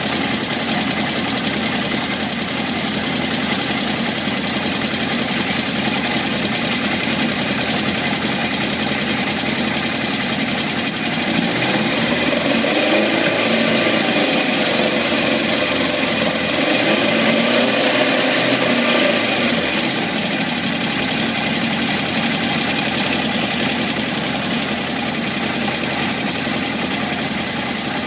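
1978 Honda CB750F inline-four engine running with a rattle. It idles, is revved up and back down twice near the middle, then returns to idle. The owner takes the rattle, which followed low oil pressure and metal shavings in the oil pan, for worn crankshaft bearings.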